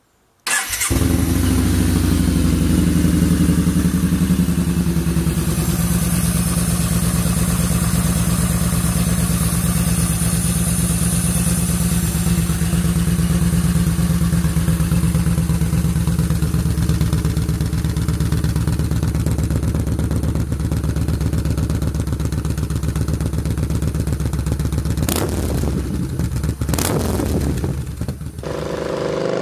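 Yamaha SCR950 motorcycle's air-cooled V-twin engine idling steadily at an even pitch, cutting in suddenly about half a second in. A few sharp knocks sound near the end.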